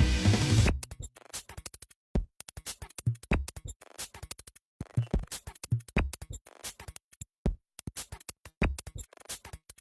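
Electronic music with a drum-machine beat. A dense passage breaks off about a second in, and the rest is short, chopped fragments separated by brief silences.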